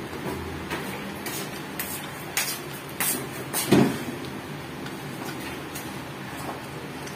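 Plastic parts of a phone chest mount clicking and knocking as they are handled and fitted together: a handful of short sharp clicks, the loudest about three and a half seconds in, over a steady low hum.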